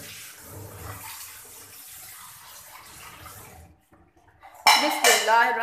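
Soft, even sloshing of thin curry gravy and sev being stirred and ladled; it stops a little before four seconds in, and a woman starts speaking near the end.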